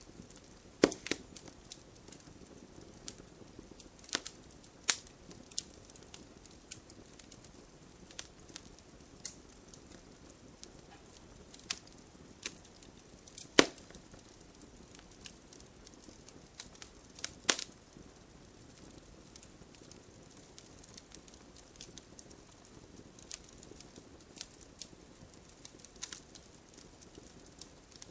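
Wood fire crackling, with irregular sharp pops, the loudest about halfway through, over a steady hiss of gentle rain.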